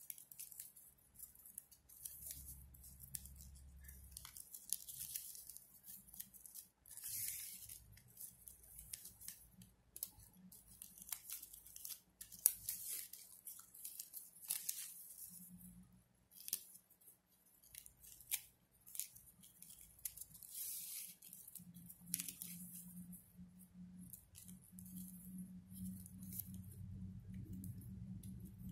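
Stiff ribbon being threaded through woven loops and pulled through by hand: faint, scattered rustles, swishes and small clicks. A low steady hum comes in over the last several seconds.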